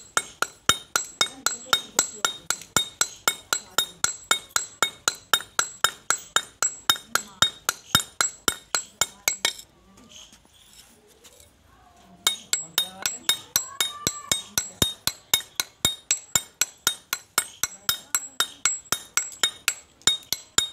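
Hammer driving a steel chisel into a stone sil grinding slab: rapid, ringing metal-on-stone taps about four a second, pitting the slab's worn face to roughen it for grinding again. The tapping stops for a couple of seconds about halfway through, then carries on.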